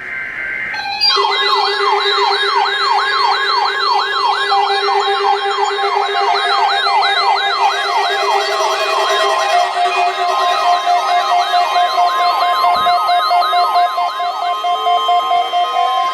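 Electronic yelp siren, its pitch sweeping rapidly up and down about three times a second over several steady tones. The yelping stops near the end while the steady tones and slow pitch glides carry on.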